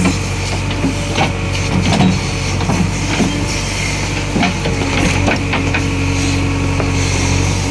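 JCB 3DX backhoe loader's diesel engine running steadily at work, with scattered knocks and clanks throughout. A steady whine joins the engine about two thirds of the way through.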